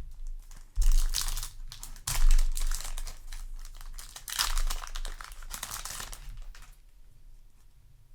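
Crinkling of a Yu-Gi-Oh! booster-pack wrapper being handled and crumpled, in several bursts that die away about seven seconds in.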